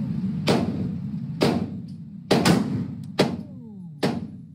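Pistol shots at an indoor range: six sharp reports at irregular intervals, two of them close together in the middle, each with a short echoing tail, over a steady low background rumble.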